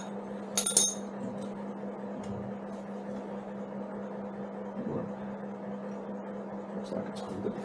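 A small metal part clinks once with a brief metallic ring about a second in, then a few faint clicks of hand-fitting near the end, over a steady low hum.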